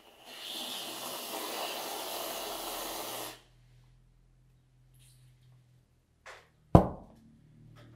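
Aerosol whipped-cream can spraying: a steady hiss lasting about three seconds as the cream is dispensed, then cutting off. A single sharp thump a few seconds later.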